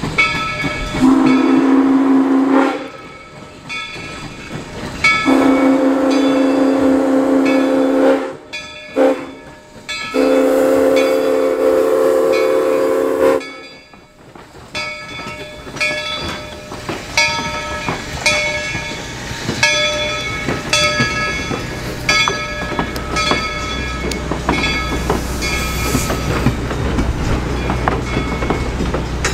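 Whistle of 1923 ALCO steam locomotive #97 blowing the grade-crossing signal: long, long, short, long. Then the locomotive bell rings about once a second over the clatter of the passing train, with a low rumble building near the end.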